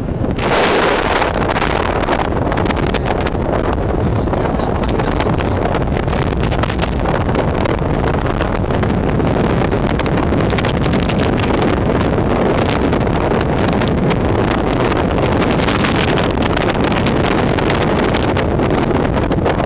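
Wind rushing steadily over the microphone on a moving motorcycle, with the motorcycle's engine running underneath.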